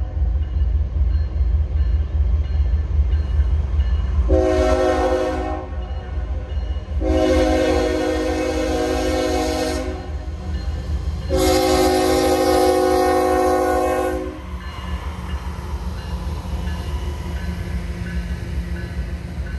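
Diesel freight locomotive horn sounding at a grade crossing: one short blast, then two long blasts of about three seconds each, several notes at once. Underneath them runs the steady deep rumble of the CSX GE ES44AH-led freight train.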